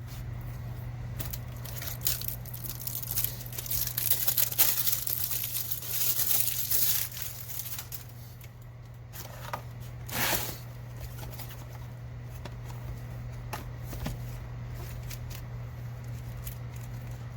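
Plastic packaging being torn open and crinkled in bursts, with a few sharp clicks, over a steady low hum.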